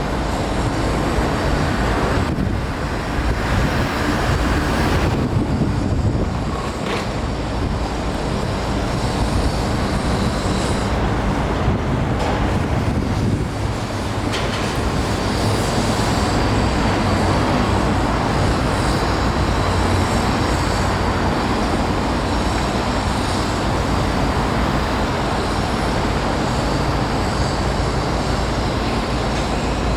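Continuous city traffic and rail noise: a dense, steady rumble of passing vehicles with no single event standing out.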